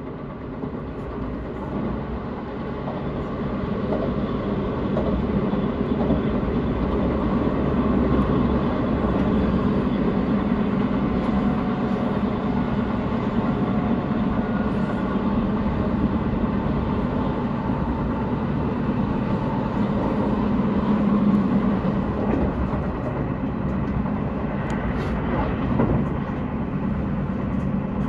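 Kintetsu electric train running on the rails, its noise building over the first few seconds and then holding steady, with a brief whine near the end.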